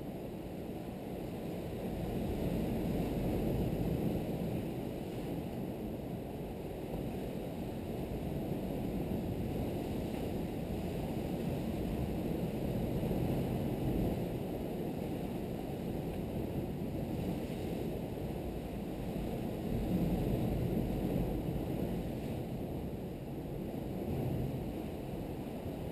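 Wind buffeting the microphone, a steady low rumble that swells louder every few seconds.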